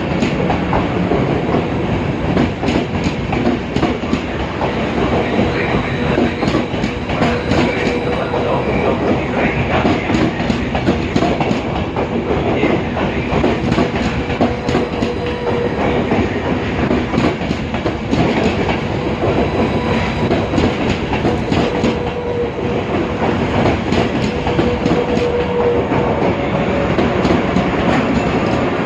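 A long train passing close by on the station track: a continuous rumble of wheels on rails with rapid clicking over the rail joints and a faint steady whine.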